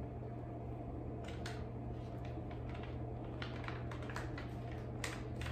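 Crinkling and rustling of a prosciutto package's plastic and paper interleaf sheets as slices are peeled apart by hand, in short scattered crackles that are loudest near the end, over a steady low hum.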